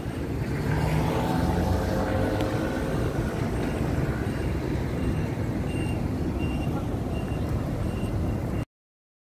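City road traffic with a vehicle engine running for the first few seconds and a faint high beep repeating about every half second in the latter part. The sound cuts off abruptly near the end.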